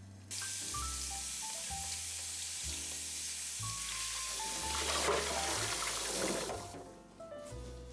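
Water running from a tap into a sink, turned on abruptly just after the start and shut off about six and a half seconds in, with heavier splashing in the last second or so before it stops.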